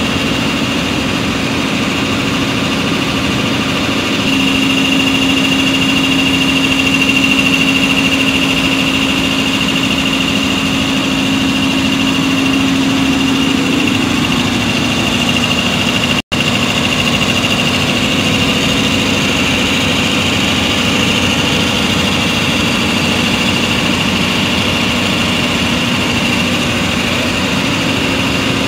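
Large Kirloskar industrial compressor running: a steady, loud machine drone with a constant high whine over it.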